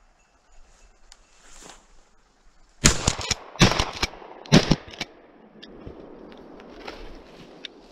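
Shotgun fired three times in quick succession, less than a second between shots, at a duck in flight; each shot is followed by echo.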